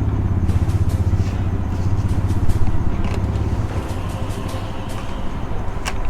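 A steady low mechanical rumble, like a motor running, that eases off about three and a half seconds in, with a few faint light clicks.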